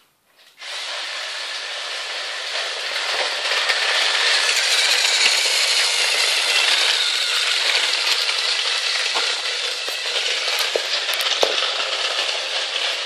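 Battery-powered toy train's motor and gears whirring steadily as it runs along plastic track, with scattered small clicks; the whir switches on suddenly about half a second in.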